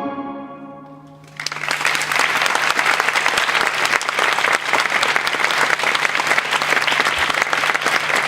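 The final held chord of the ballet music dies away, and about a second in a theatre audience breaks into loud, sustained applause.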